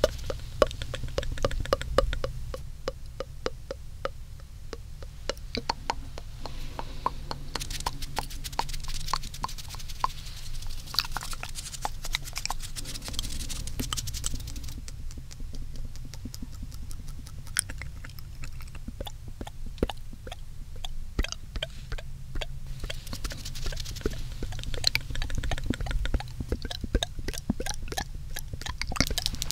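Close-up wet mouth sounds on a binaural microphone: a dense run of layered tongue clicks and smacks, irregular and quick, over a low steady rumble.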